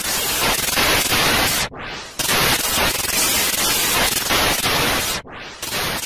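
Electronic static sound effect for an animated intro: loud bursts of hissing digital noise that cut out sharply twice and sweep back in.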